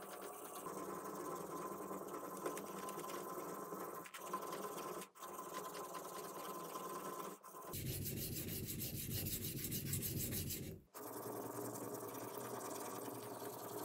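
Steel blade of a Japanese deba knife being stroked back and forth on a wet whetstone by hand: a steady scraping rub of steel on stone. The rub gets briefly harsher and fuller in the middle.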